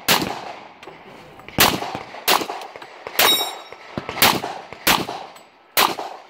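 Glock pistol shots fired one after another, about seven in six seconds, with ringing clangs of steel targets being hit.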